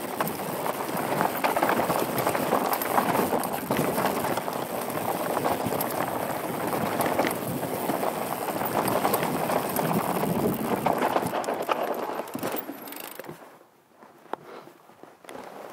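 Mountain bike rolling fast downhill over rocky, gravelly singletrack: tyre noise on loose stones, with the bike rattling and clicking over rocks. A couple of seconds before the end it drops sharply to only a few clicks, then rises again.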